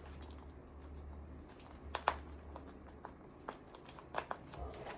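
Belt keepers being handled and fastened onto a duty belt: scattered small clicks and rustling, most of them about two seconds in and toward the end, over a low steady hum.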